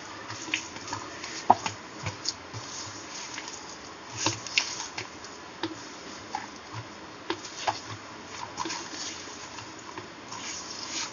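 A hand kneading a wet mixture of minced mutton and pearl millet flour in a steel bowl: irregular squishing and patting, with scattered short sharp clicks.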